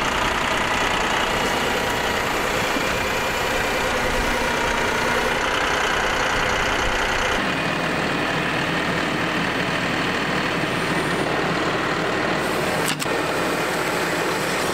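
John Deere utility tractor's diesel engine running steadily while it carries a loaded pallet on its front-loader forks. A single sharp click near the end.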